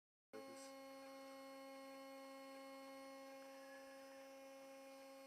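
Faint steady electrical hum with a stack of even overtones, cutting in suddenly just after the start.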